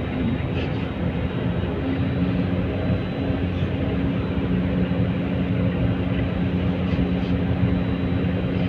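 A car driving at a steady speed, with engine and tyre noise and a steady low hum that grows stronger about two seconds in.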